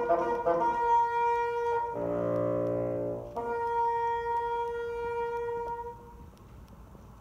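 Solo bassoon playing: a held high note, a low note about two seconds in, then the high note held again, then a rest about six seconds in.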